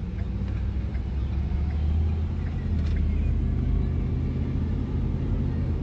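Steady low rumble of engine and road noise from inside a moving shuttle van's cabin.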